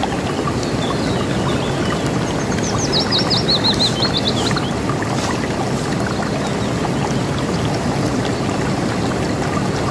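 River water rushing steadily. About two and a half seconds in, a songbird gives one quick run of high chirps that step down in pitch and last about two seconds.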